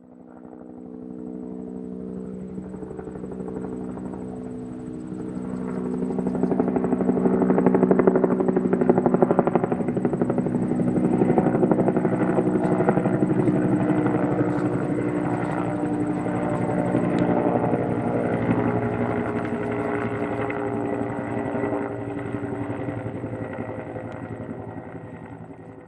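Helicopter flying by: a fast, steady chop of rotor blades over a pitched mechanical drone. It fades in, is loudest about eight seconds in and stays loud, then fades away near the end.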